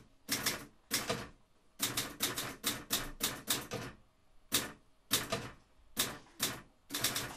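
Typing on a computer keyboard: quick, uneven key clicks in stop-and-go runs, with short pauses between the runs.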